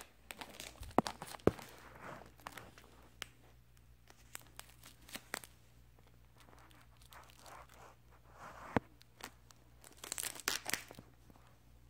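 Scattered clicks and rustles of a phone being handled and fixed in place, with adhesive tape being torn.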